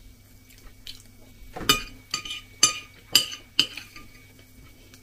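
A metal spoon clinking against crockery: about five sharp clinks, roughly half a second apart, starting a bit under two seconds in.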